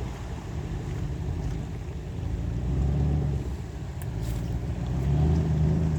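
Off-road vehicle's engine revving up and easing off in three swells as it pushes through a river crossing.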